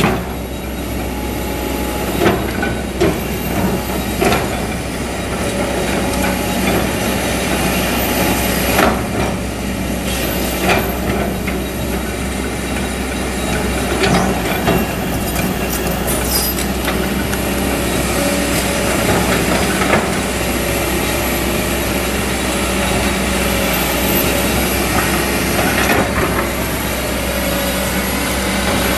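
Kobelco SK200 hydraulic excavator's diesel engine running steadily under load as it digs soil, with scattered sharp clanks and scrapes from the bucket working the dirt.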